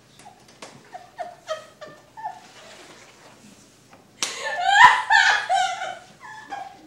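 A woman's voice in wordless theatrical vocalizing: small breathy sounds and clicks at first, then loud, broken cries falling in pitch starting about four seconds in, with one sharp smack among them.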